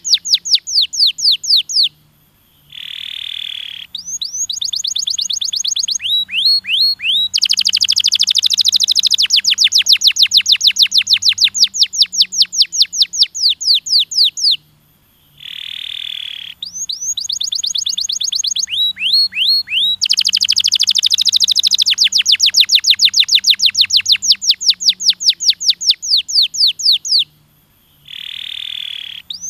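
Domestic canary singing a long song of rapid trills, each a fast run of high repeated notes, with a short harsh, buzzy note between phrases. The same song plays through twice, with a brief pause between.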